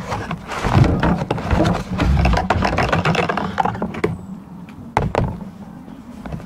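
Cardboard box being opened by hand: the flaps and the packing inside rustle and scrape, with many small clicks and knocks, and a rear shock absorber is lifted out. It goes quieter after about four seconds, with a couple of sharp knocks about five seconds in.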